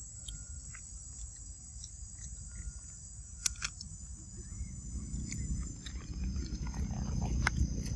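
Insects droning steadily at a high pitch, with a few sharp clicks of a macaque biting into a leaf. A low rumble grows louder in the second half.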